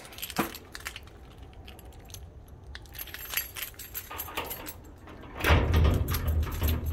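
Keys jangling on a keyring, with small metallic clicks, as a key is fitted into a gate's lever lock. About a second and a half before the end, a louder low rumble with clattering sets in.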